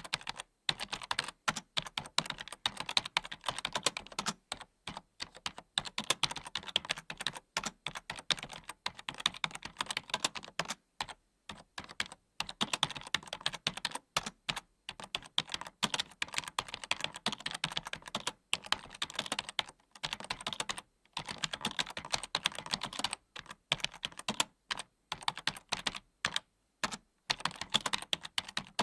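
Computer keyboard being typed on quickly: dense runs of key clicks broken by brief pauses every few seconds.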